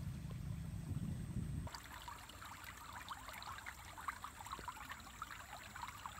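A faint low rumble that cuts off abruptly under two seconds in, followed by faint trickling, pattering water.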